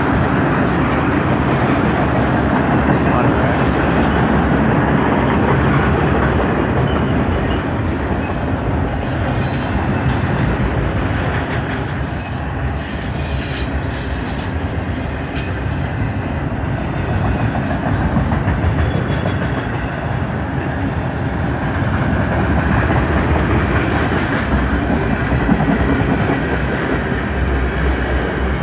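Freight cars of a CN freight train rolling past close by: a steady rumble of steel wheels on rail with some clickety-clack over the rail joints. High wheel squeal comes through about a third of the way in and again about three-quarters through.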